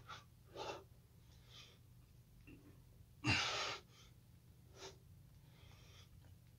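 A man breathing hard through slow push-ups: one forceful exhale a little over three seconds in, with softer breaths between. The breaths fall about four seconds apart, in time with the reps.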